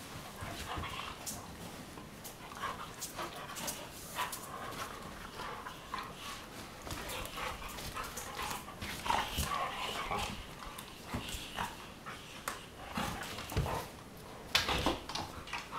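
Two Weimaraners playfighting on a bed: scuffling and sharp clicks from their movements, mixed with short dog vocal noises. A louder burst of scuffling comes near the end.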